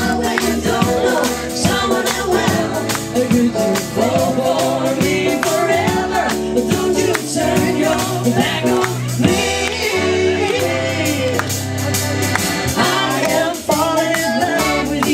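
Live pop-rock band playing a song with a sung lead vocal over a steady drum beat, bass and guitars.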